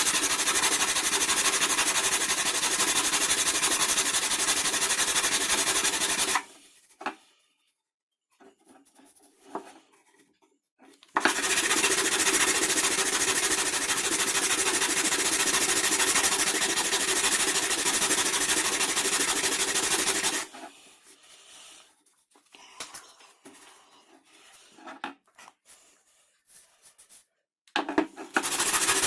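Scroll saw running steadily. It stops about six seconds in and starts again about five seconds later. It stops again at about twenty seconds and restarts near the end. Small handling clicks and knocks fill the quiet gaps.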